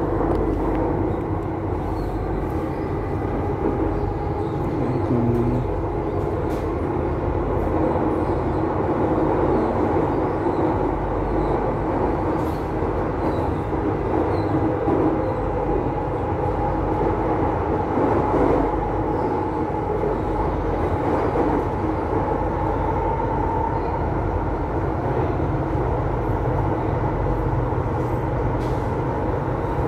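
Delhi Metro train running at speed, heard from inside the carriage: a steady rumble of wheels on rail with a faint whine and occasional light clicks.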